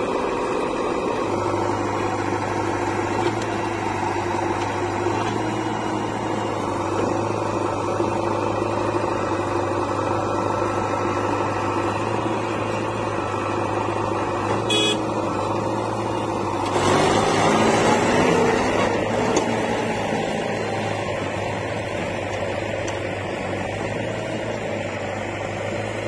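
Diesel engines of a JCB 3DX backhoe loader and a Mahindra 475 DI tractor running steadily while at work. About two-thirds of the way through, a louder, rougher rush of noise lasts a couple of seconds.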